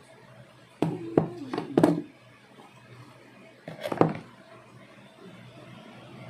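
Handling noise of small plastic vlog-kit accessories: a quick run of sharp knocks and clicks about a second in, and another short cluster around four seconds in.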